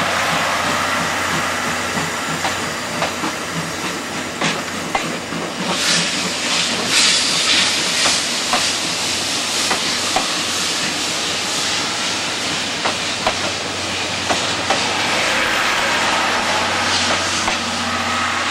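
Steam-hauled passenger train pulling away and rolling past at slow speed: steady steam hiss and exhaust noise, with wheels clicking over the rail joints as the coaches go by. The hissing swells louder about six seconds in.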